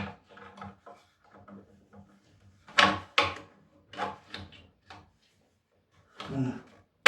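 A series of short knocks and clatters as parts of a stairlift are handled and fitted back into place, the two loudest knocks about three seconds in and another cluster near the end.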